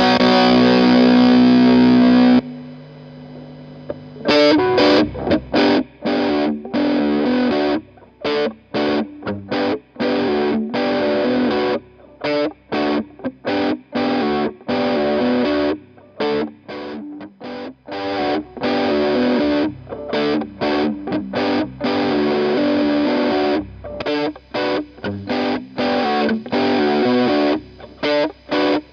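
Electric guitar through a Walrus Audio Iron Horse LM308 distortion pedal: a held distorted chord is cut off about two seconds in, and after a short, quieter pause a tight stop-start riff of short distorted chords begins, with frequent abrupt stops.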